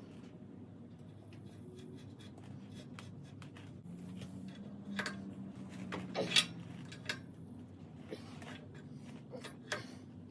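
Scattered clicks, taps and light scrapes of metal hydraulic fittings being handled and threaded together, the loudest click about six seconds in, over a steady low hum.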